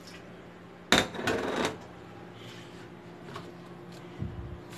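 Kitchen clatter: a sharp clink about a second in, then a short rattle of dishware or utensils being handled, with a faint steady hum behind.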